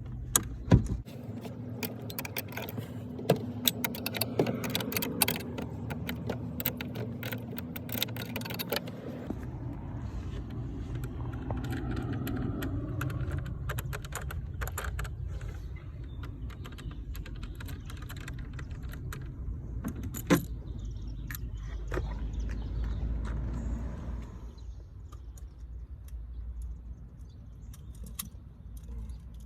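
Small metal objects jangling and clicking in quick irregular clusters for roughly the first nine seconds, with a few single clicks later. Under them is a steady low rumble that swells around twenty seconds in and eases off near the end.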